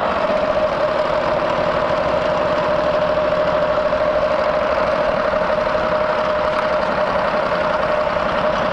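Harley-Davidson Panhead's V-twin engine running as the motorcycle rides along at a steady pace. A steady whine sits over the engine's pulse.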